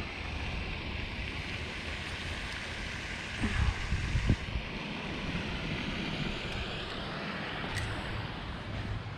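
Steady outdoor hiss with an uneven low rumble: wind buffeting the microphone. Two soft thumps come about three and a half and four seconds in.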